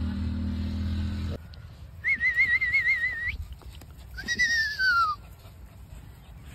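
Shih Tzu puppy whining twice: first a high, wavering whine held for about a second and a half, then a whine that slides downward in pitch. Before them, a low steady hum cuts off abruptly about a second in.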